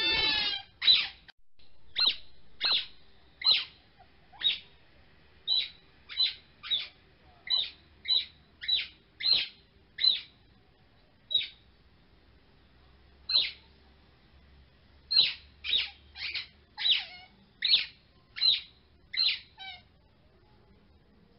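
A long series of short, high chirps, one every half second to a second at an uneven pace, with a pause of about two seconds near the middle.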